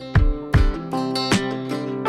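Background music: an acoustic guitar strumming chords in a steady rhythm, a stroke about every half second or a little less.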